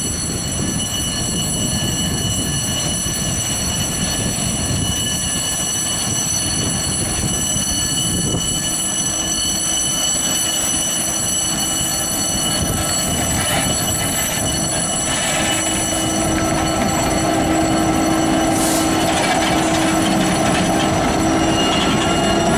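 Class 66 diesel-electric locomotive, with a two-stroke V12 engine, passing slowly at low speed while hauling hopper wagons. The engine and running gear give a steady rumble that grows louder in the second half as the locomotive draws level, under several steady high-pitched squealing tones from the wheels.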